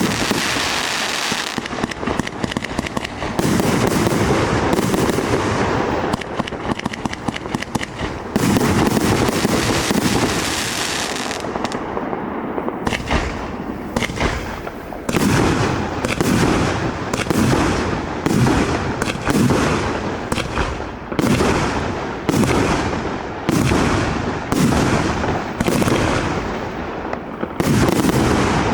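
A multi-shot compound fireworks cake firing: for about the first twelve seconds a dense, continuous barrage of bangs and crackling, then a steady run of separate shots and bursts, about one to two a second.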